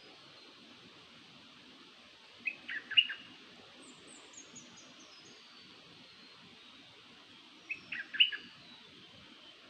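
Song of a nok dok taeng (Thai bird name), the kind of song used as a decoy call: a short, loud phrase of a few quick notes, given twice about five seconds apart. A fainter, higher descending series of notes from another bird comes between them, over a steady low background hum.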